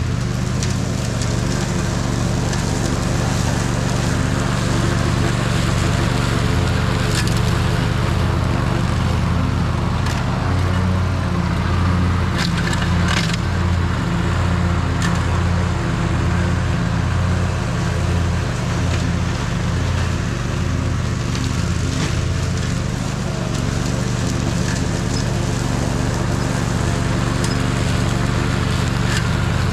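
Toro TimeCutter SS4260 zero-turn mower's engine running steadily with a low, pulsing hum, with a few faint clicks here and there.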